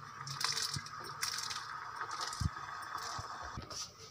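Soft boiled chana dal and its cooking water being tipped out of a pressure cooker into a pot of broth: repeated wet splashes and plops, with a couple of dull knocks.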